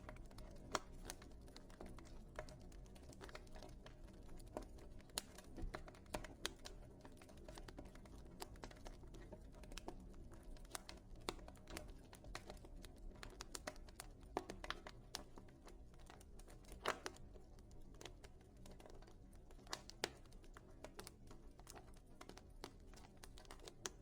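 Wood fire crackling in a fireplace: irregular sharp pops and snaps over a faint low rumble of the flames.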